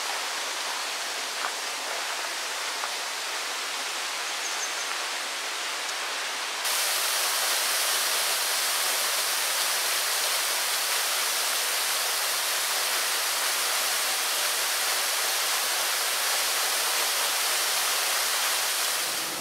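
Steady rushing of falling water. About seven seconds in it jumps suddenly louder and brighter: a waterfall splashing down into a pool.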